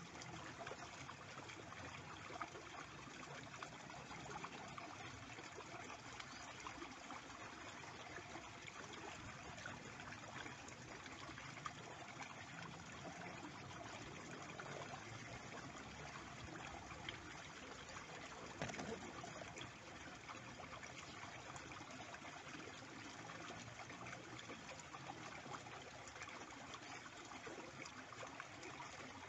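Small shallow stream running steadily over its bed: a continuous, even trickling rush of water, with a few faint clicks.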